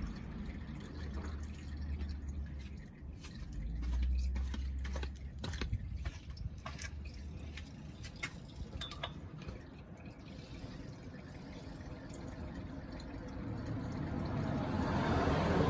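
Used engine oil draining from a car's sump into a drain pan: a run of separate drips about halfway through, then a steadier trickle building toward the end.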